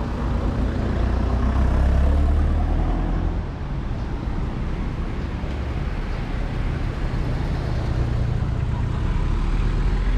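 Road traffic on a town street: a steady low rumble that swells about two seconds in and again near the end.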